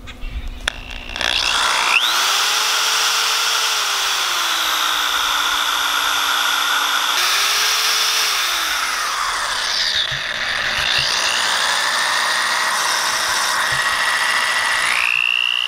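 Corded DeWalt electric drill running forward, spinning a wire hook that twists two strands of bank line into rope. It starts about a second in with a rising whine, and its pitch falls and rises several times as the speed changes.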